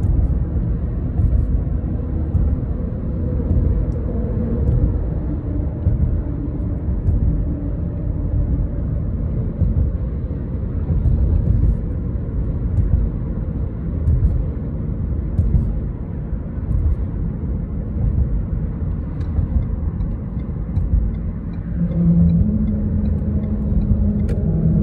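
Road noise heard inside a car driving across a suspension bridge: a steady low rumble of tyres and engine. Near the end a droning hum joins it as the tyres roll onto the Mackinac Bridge's open steel-grating deck.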